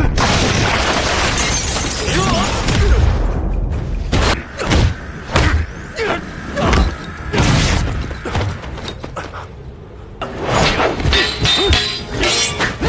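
Martial-arts film fight soundtrack: a rapid series of punches, strikes and crashes with short shouts, over music. The action eases for a moment about eight seconds in, then picks up with a fast flurry of hits near the end.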